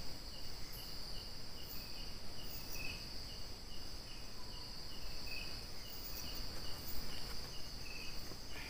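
Night insects: crickets keeping up a steady high trill, with a second insect chirping in a regular pulse of about three chirps a second.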